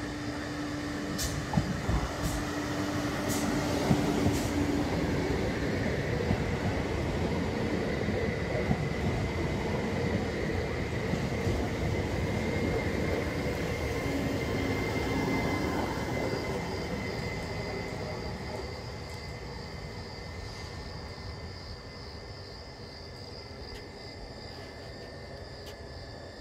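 Electric regional passenger train running past close by. The rumble of its wheels builds, holds loudest for about twelve seconds and then fades away. A steady high-pitched whine runs throughout, and a few sharp clicks come in the first few seconds.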